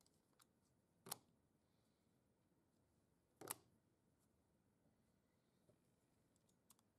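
Two sharp plastic clicks, about two and a half seconds apart, as Blinky Block robot modules are snapped onto the assembly, with a few faint ticks over near-silent room tone.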